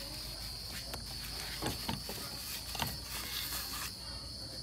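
Light rustles and a few soft clicks of hands wiping a throttle body with tissue, over a steady high-pitched background hum.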